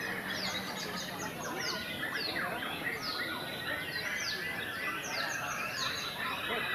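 Many caged white-rumped shamas (murai batu) singing at once in competition, a dense, unbroken chorus of quick whistled phrases, many sweeping down in pitch, over a low crowd murmur.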